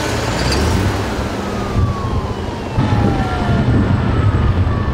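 Emergency vehicle siren wailing, its pitch gliding slowly downward, over a heavy engine and road rumble. A little under three seconds in the sound steps up and a second downward wail begins.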